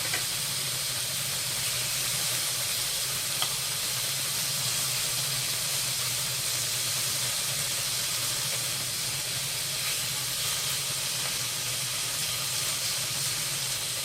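Pieces of duck and beef sizzling steadily in an oiled pan, with a faint tick about three seconds in.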